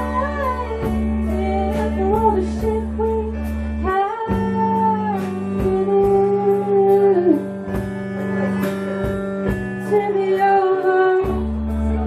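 A live band playing with a singer: a sung melody over sustained low notes and a steady beat ticking about twice a second. The deep bass notes drop out about four seconds in and come back near the end.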